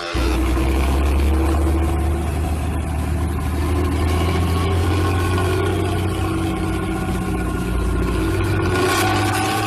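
Bus diesel engine running with a deep, steady rumble, the 'ngorok' (snoring) growl that bus fans prize.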